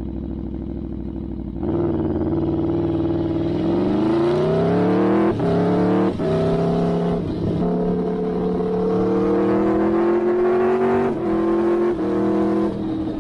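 Aprilia Tuono V4 1000 motorcycle engine with an Arrow GP exhaust, idling and then opening up hard about a second and a half in. The revs climb, broken by a run of quick upshifts, then settle into a steady pull with a few more gear changes near the end.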